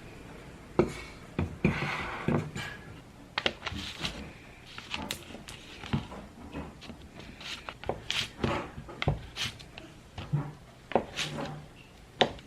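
Irregular knocks, clicks and light clatter of household objects being handled and set down, a dozen or so sharp taps spread unevenly.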